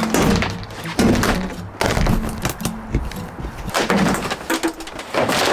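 A series of knocks, thumps and scraping rustles as a van's ceiling headliner panel and its plastic trim clips are pried and pulled loose inside the stripped metal body.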